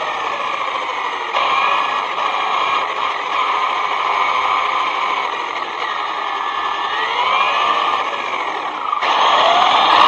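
ZD Racing Pirates 2 RC truck's brushless electric motor whining as it drives, the pitch gliding up and down with the throttle over a steady rushing noise. The sound steps up abruptly about a second in and again near the end.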